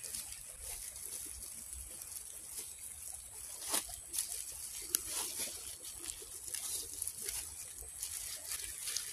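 A small 1/18-scale RC crawler built on a Traxxas TRX-4M crawls over roots and moss. Its tires and chassis make scattered light clicks and crackles, with no steady rhythm.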